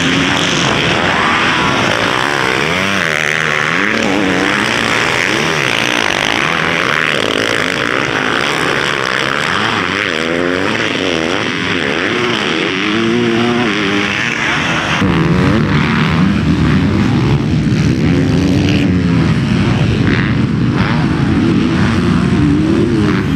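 Several motocross dirt bikes running on a track, their engines repeatedly revving up and dropping back through the gears. From about two-thirds of the way in the engines are louder and heavier, as bikes come close.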